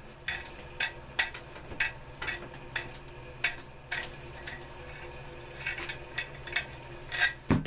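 Light, irregular clicks and taps as metal wing nuts and bolts are unscrewed and handled on a wooden bucksaw frame, with a louder knock near the end.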